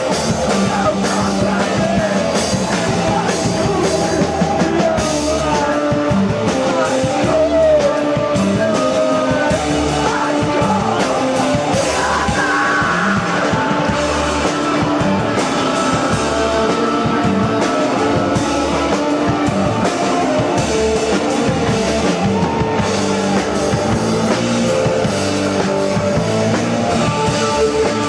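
A live rock band playing electric guitar, bass and drum kit, with a singing voice over the top.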